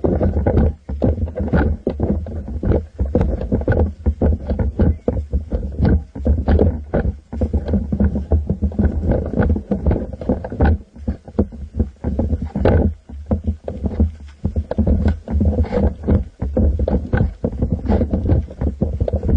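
Handling noise from a camera mounted on an airsoft M4 rifle as it is carried: a steady jumble of irregular knocks, bumps and rubbing over a low rumble.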